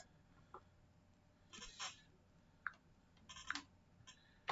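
Near silence: room tone with a few faint scattered clicks and short rustles, and a sharper click near the end.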